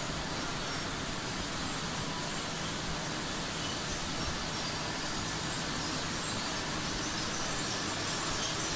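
Steady running noise of an industrial tortilla/flatbread dough-sheeting line: conveyor belts, rollers and their drive motors, with a faint high steady whine.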